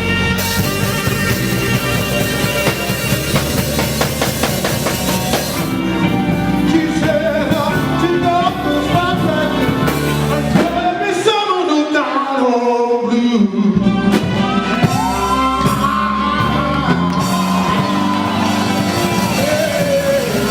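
Live band music with a singer, the voice sliding up and down through held notes. About halfway through, the bass and drums drop out for a couple of seconds, leaving the voice nearly alone, then the full band comes back in.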